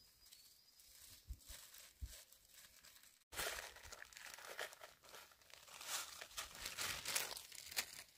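Thin plastic bag crinkling and rustling in the hands as salt is poured out of it, mostly from about three seconds in.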